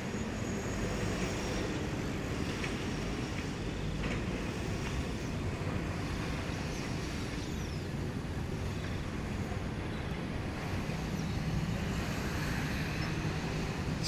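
Steady low outdoor rumble, like distant traffic, with no distinct sounds standing out.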